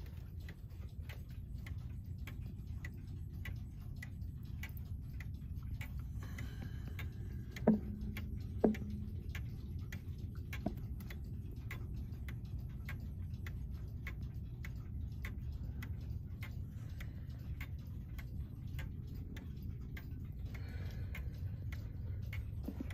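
Howard Miller Jenison pendulum wall clock's movement ticking steadily. Two louder knocks come about eight and nine seconds in, and a lighter one near eleven seconds.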